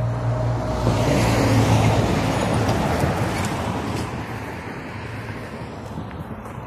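A road vehicle driving past: a steady engine hum, then a rush of tyre and road noise that swells about one to two seconds in and slowly fades away.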